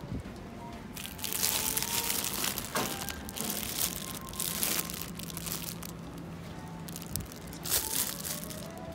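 Thin plastic produce bags crinkling as they are handled and set into a plastic shopping basket, in a few short bursts.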